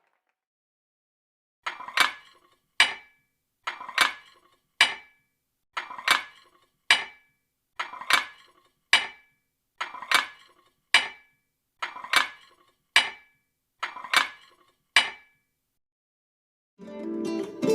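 Rhythmic clinking: about twenty sharp, ringing strikes in a steady repeating pattern with dead silence between them, which stops a couple of seconds before the end.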